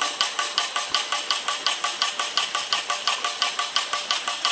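Upwood G001 air-driven diaphragm pump running, its air valve clicking and exhausting in a fast, even rhythm several times a second over a steady hiss, as it circulates liquid back into the bucket through the return hose.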